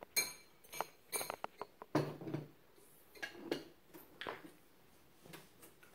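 Scattered light clinks and knocks of dishes and cutlery being handled, coming irregularly with no steady rhythm.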